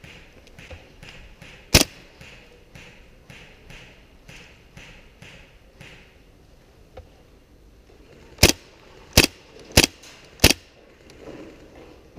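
Airsoft gun firing single shots: one sharp crack about two seconds in, then four more in quick succession near the end, about two-thirds of a second apart.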